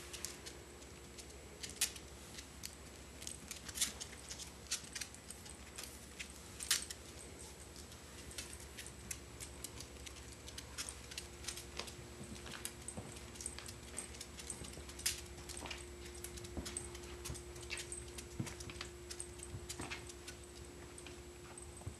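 A chihuahua's claws clicking irregularly on a tile floor as she walks about.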